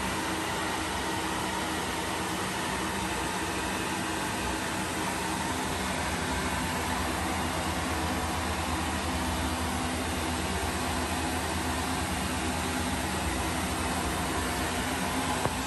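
Small electric blower fans of Airblown inflatables running steadily to keep them inflated: a constant whirring rush with a low hum.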